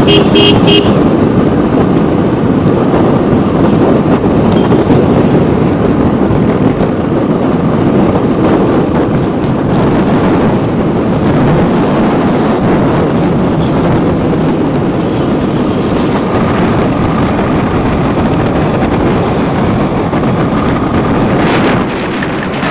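Motorcycle riding at road speed: the engine running steadily under a constant rush of wind on the microphone, with a few short beeps right at the start.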